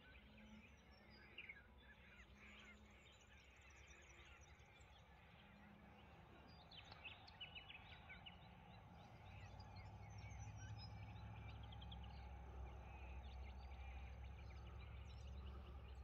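Faint outdoor ambience of many small birds chirping and calling. A low steady rumble comes in about halfway through.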